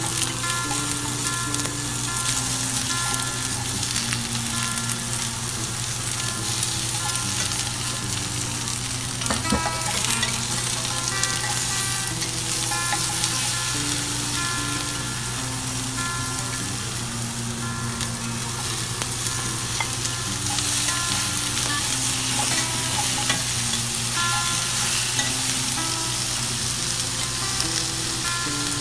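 Onion and cubed squash sizzling steadily in hot oil in a stainless steel pan. The squash cubes are tipped in at the start and stirred with a wooden spatula, over soft instrumental background music.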